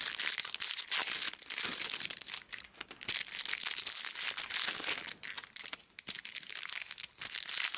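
Crinkling and crackling of a baseball card pack's plastic-foil wrapper being handled and opened, a continuous run of small crackles.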